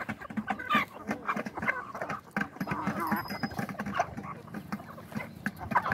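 A flock of chickens clucking and calling while they feed around a steel bowl, with scattered short pecking taps.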